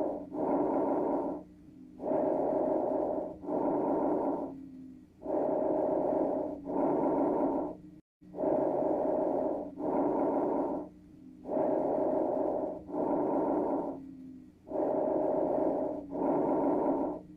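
Recorded lung sounds heard through a stethoscope: breathing in and out, each breath about a second long with a short break between in and out and a pause before the next. The pattern repeats about every three seconds and cuts out briefly about eight seconds in.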